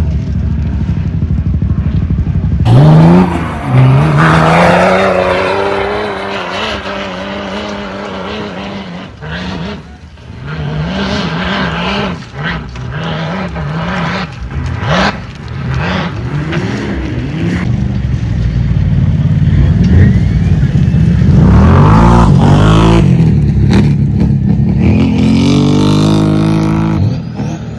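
Off-road vehicle engines revving hard, the pitch climbing and dropping again and again as the throttle is worked, with a long rising rev near the end. Several short sharp knocks come in the middle.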